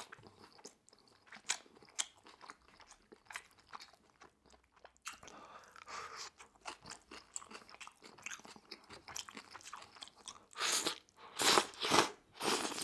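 Close-miked eating sounds of a person chewing chicken yakisoba noodles, with small wet clicks and smacks throughout. Several louder slurps come near the end.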